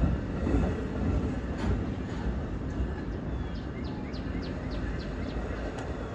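A passing train rumbling steadily on the rails, with a run of short high chirps repeating over the rumble.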